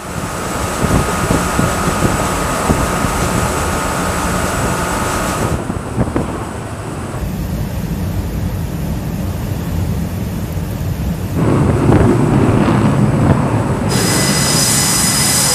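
Steady engine and wind rumble at sea, changing abruptly several times between takes. About fourteen seconds in, the high whine of a fighter jet's engines on an aircraft carrier's flight deck comes in.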